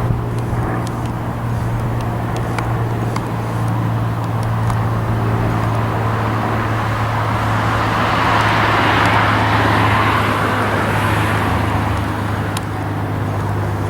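Steady low engine drone of a small propeller plane circling low, its noise swelling to a peak about nine seconds in as it passes close overhead, then easing off.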